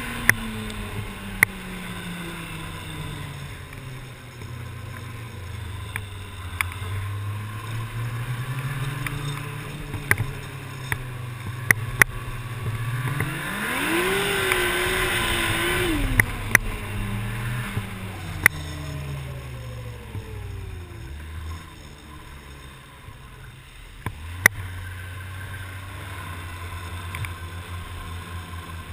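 Arctic Cat snowmobile engine running under way, the revs wandering, then climbing sharply about halfway through and holding high for a couple of seconds with a rush of track and wind noise before easing back off. The engine drops low later on and picks up again, and sharp clicks come every few seconds.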